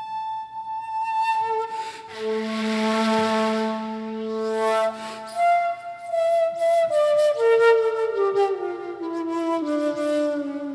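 Shakuhachi playing a slow melody over guitar accompaniment. About two seconds in, a loud breathy rush of air sounds over a held note, and in the second half the melody steps downward note by note.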